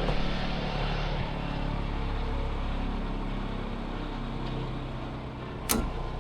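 Komatsu excavator's diesel engine running steadily, with one sharp click about five and a half seconds in.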